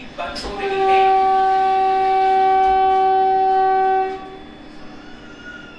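Vande Bharat Express electric train's horn sounding one long steady note for about three and a half seconds, heard from inside the coach: the departure signal after the doors have closed.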